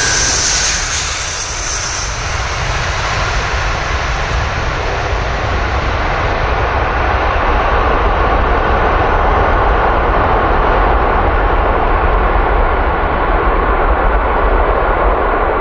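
Antonov An-124's four D-18T turbofans at takeoff power, loud and steady. A high whine in the first couple of seconds fades into a broad rushing jet noise that grows louder through the second half.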